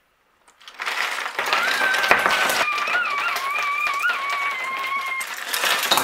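Plastic Construx building pieces clattering and rattling as a case full of them is tipped out and they spill onto the floor, with a child's long, high-pitched, wavering squeal over the clatter.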